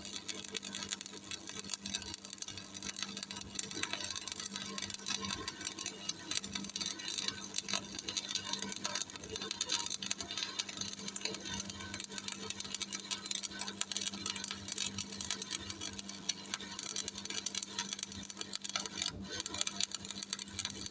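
Shielded metal arc (stick) welding with an E6013 3.2 mm electrode on a Miller Thunderbolt 225: the arc crackles steadily as a second pass is laid along the fillet joint, with a steady hum under it.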